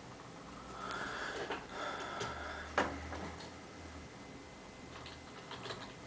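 Computer mouse and keyboard clicks. One sharp click comes about three seconds in, and quick small key taps follow near the end as a word is typed. Before the sharp click, from about a second in, there is a soft rustling noise.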